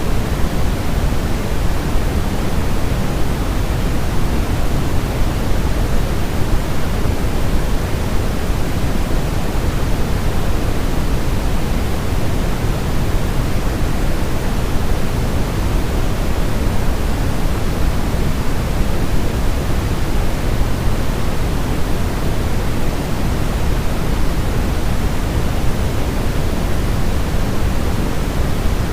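Steady synthetic white noise of the kind played to soothe a baby to sleep: an even, unbroken hiss, heavier in the low end than in the treble, that never changes.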